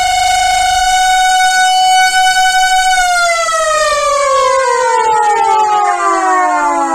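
Two civil defence sirens under test, sounding a loud steady wail that climbs slightly, then, about three seconds in, winding down in a long falling pitch.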